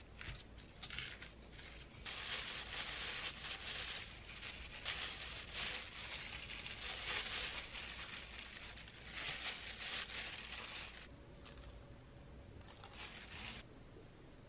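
A few strokes of a spoon mixing rice in a stainless steel bowl, then a clear disposable plastic glove crinkling and rustling as a hand squeezes seasoned rice into small balls. The crinkling dies down near the end.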